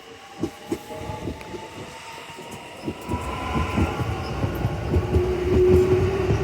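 Electric train heard from inside the car, pulling away and gathering speed: the traction motors give a faint rising whine while wheel clicks over rail joints come faster and the running rumble grows louder. About five seconds in, a steady hum sets in.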